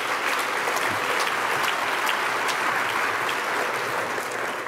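Audience applauding: a steady patter of many hands clapping that tails off near the end.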